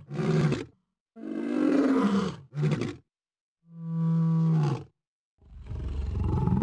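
Lion roars dubbed as a sound effect: four short roars cut apart by brief dead-silent gaps, then a longer, rougher, pulsing roar that starts near the end.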